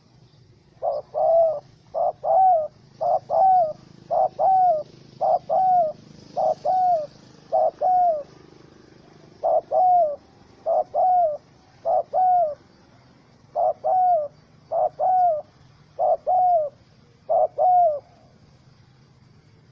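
Spotted dove cooing: a steady series of about fourteen short two-note coos, each a brief note followed by a longer one that falls away at the end, repeated roughly once a second with a few longer gaps.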